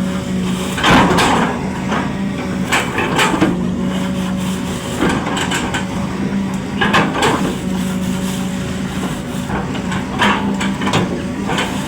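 Excavator's diesel engine running steadily, with irregular crunching and cracking impacts every second or two as the machine breaks up old oil palm trunks.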